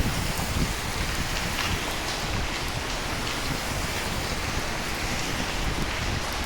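Steady rain falling, an even hiss with scattered faint drop patters.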